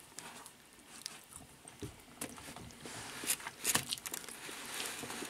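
Scattered small clicks, knocks and rustles of people eating sausages close to the microphone, with some chewing.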